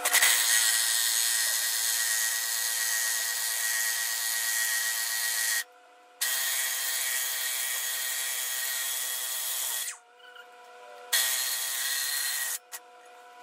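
Cordless impact wrench running on a puller's forcing screw to draw the flywheel off a John Deere Type E hit-and-miss engine's crankshaft. It runs in three long bursts with short pauses between them, and a brief burst near the end.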